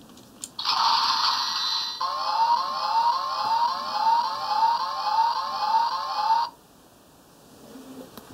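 Bandai DX Deka Wing Robo toy's built-in electronic sound effect. A buzzy tone lasts about a second and a half, then a siren-like run of rising sweeps, about two a second, before it cuts off suddenly.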